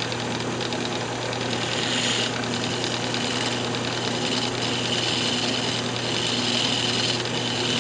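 Lathe motor humming steadily while a turning tool cuts a spinning paint chip, a scraping hiss that strengthens about two seconds in and again for the second half.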